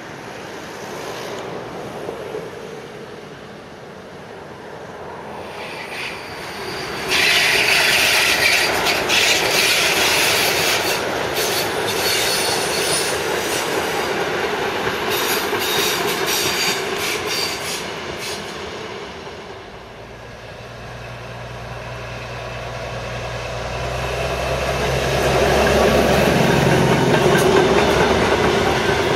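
Train of vintage passenger coaches rolling past close by, wheels clattering over rail joints, with a stretch of high-pitched wheel squeal a few seconds in. Near the end a low steady hum grows louder as the steam locomotive at the rear of the train draws near.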